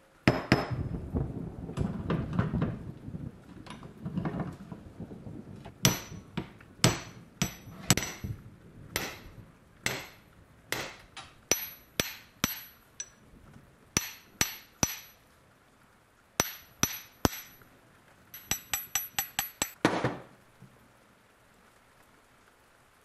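A steel hammer striking metal: sharp blows, each ringing briefly, spaced irregularly at about one or two a second, then a quick run of about ten blows near the end. Duller knocks and rubbing come first.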